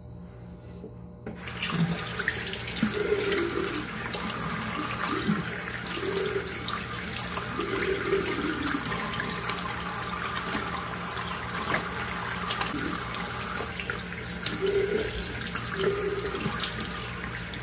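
Sink tap turned on about a second in and running steadily, with irregular splashing as water is scooped onto the face to rinse off foam cleanser.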